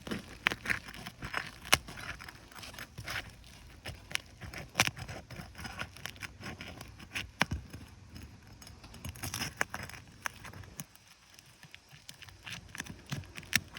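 Asphalt shingles being worked loose: irregular crackling, scraping and sharp clicks as the sealed tar line breaks and the shingle tabs are lifted, a few louder snaps among them.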